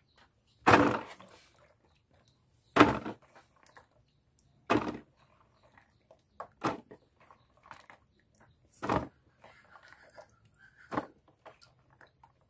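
Small round liputi fruits being washed by hand in a plastic basin of water: a handful is scooped and let fall back into the water about every two seconds, six splashes in all, with faint sloshing between.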